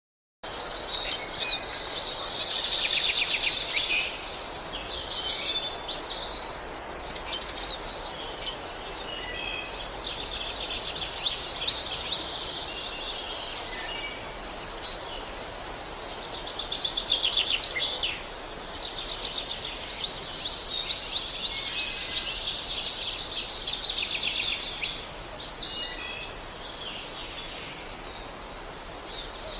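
A dense chorus of many small birds chirping and twittering at once, with overlapping calls all the way through. It cuts in abruptly about half a second in.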